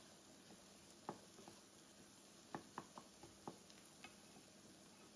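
Faint taps and scrapes of a wooden spatula stirring scrambled eggs and mushrooms in a nonstick frying pan: a single tap about a second in, then a quick run of four or five more between two and a half and three and a half seconds.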